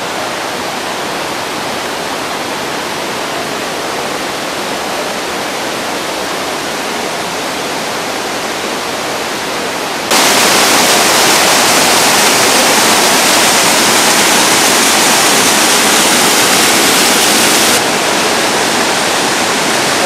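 Steady rushing of a waterfall and its stream. It jumps abruptly louder about halfway through and drops back a little near the end.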